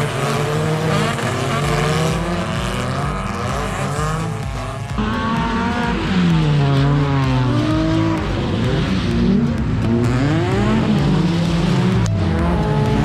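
Several folkrace cars' engines revving hard and falling back as they race through muddy corners, a number of engine notes overlapping and gliding up and down. The sound changes abruptly about five seconds in.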